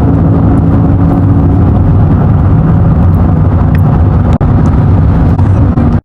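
Loud, steady low rumble of a vehicle with an engine hum running through it, cutting off abruptly near the end.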